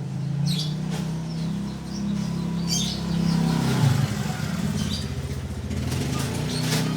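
A motor vehicle engine running, its low hum wavering in pitch, with several short high squeaks from a mouse scattered through it.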